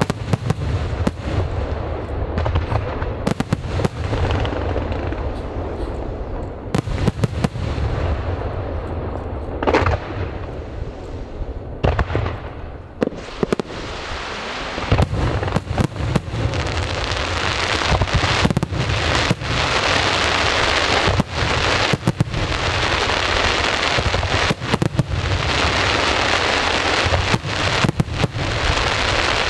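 Aerial fireworks display: shells bursting in quick, irregular succession with many sharp bangs, over a hiss that grows denser and louder from about halfway.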